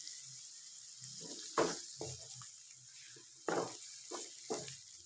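Tomato-and-spice masala in ghee sizzling softly in the pan after a little water has gone in, while a spoon stirs it, scraping and knocking against the pan in about seven short strokes from about a second and a half in.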